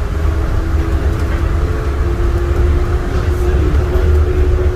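Inside a moving airport people-mover train car: steady low rumble with a constant motor whine over it.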